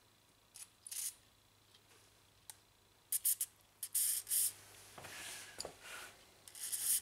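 Aerosol can of penetrating oil sprayed in several short hissing bursts onto a snapped bolt stuck in a starter motor's housing. The bursts come about a second in, in a cluster from about three to four and a half seconds, and again near the end.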